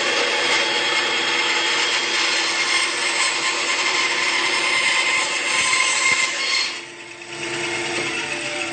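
SKIL 3386 9-inch band saw ripping a 3/4-inch oak board: a loud steady hiss of cutting over the motor's even tone, with no sign of bogging down in the hard wood. Near the end the blade clears the cut and the saw runs on, noticeably quieter, unloaded.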